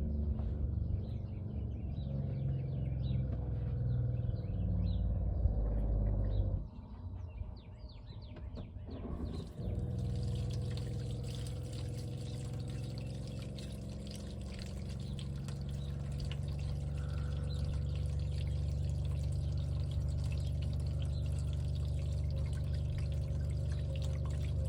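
Water pouring steadily into an RV black water tank as the toilet is flushed, a test of the newly repaired drain plumbing. There is a brief lull about seven seconds in, then the flow carries on.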